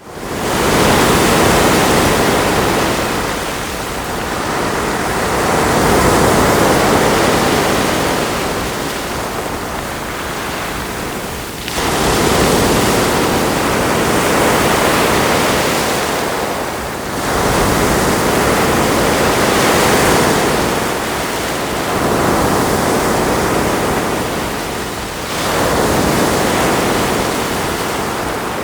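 Ocean surf breaking on a shore: a continuous rushing wash that swells and eases every few seconds, with fresh waves surging in sharply several times.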